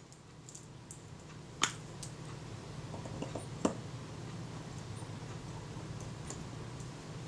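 Small metal clicks as chrome screws and a screwdriver are worked into the top cover of a Kodak Retina IIIc camera. Two sharper clicks come about one and a half and three and a half seconds in, with a few fainter ticks, over a faint steady low hum.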